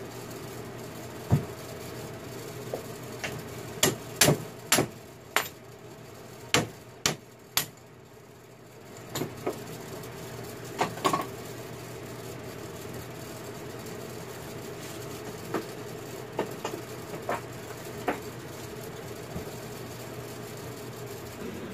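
Mallet knocking on a copper workpiece held with pliers at a bench vise: a run of sharp, irregular knocks through the first half, then scattered lighter taps, over a steady background hum.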